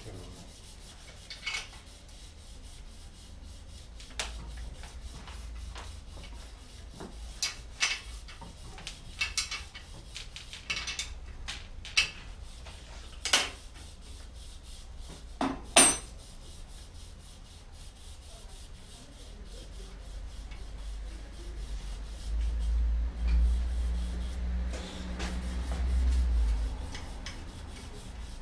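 Bicycle repair handling noise: metal parts and tools clinking and knocking now and then, one knock louder than the rest a little past halfway, then a low rumble in the last third while the rear wheel with its Duomatic hub is handled.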